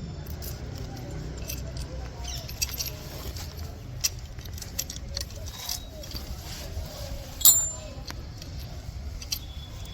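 Small metal parts and bolts clinking and rattling as they are handled, a series of light clicks with one sharper, ringing clink about seven and a half seconds in, over a steady low hum.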